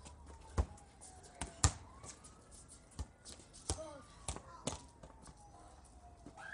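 Scattered sharp taps and knocks at uneven intervals, the loudest about a second and a half in. Under them a faint siren wails slowly, falling, rising and falling again.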